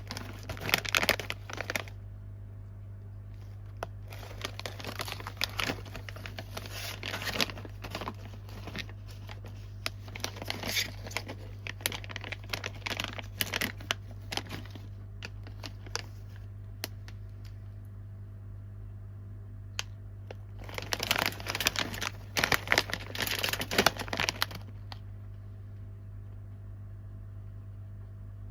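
Snack wrappers crinkling and tearing as they are handled and opened, in three bouts with pauses between, over a steady low hum.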